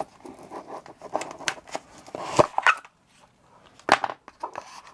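Cardboard knife box and its paper-covered styrofoam insert being handled and opened up: rustling with several sharp clicks and taps.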